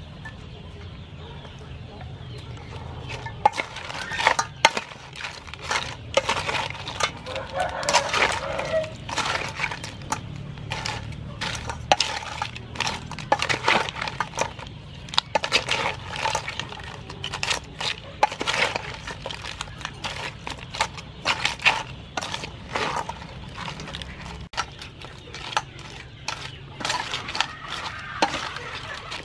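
Blue crab salad being tossed by hand in a stainless steel bowl: pieces of crab shell and shredded vegetables clicking, scraping and rustling against the metal in irregular clatters, starting about three seconds in.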